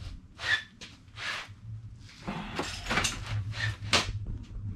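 Metal hand tools clinking and scraping on an engine block: a socket on a breaker bar worked on a main girdle nut, in a handful of short clatters, several close together in the middle, over a steady low hum.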